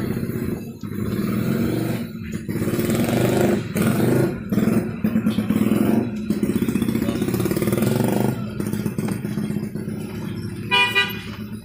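Vehicle engine and road noise heard from inside a car moving slowly along wet streets. A brief higher-pitched tone sounds near the end.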